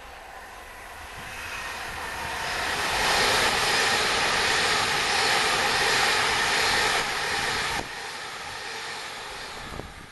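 Class 390 Pendolino electric express train passing at speed: a rushing noise of wheels on rail and air that builds for a few seconds, stays loud, then drops abruptly near the end and fades away.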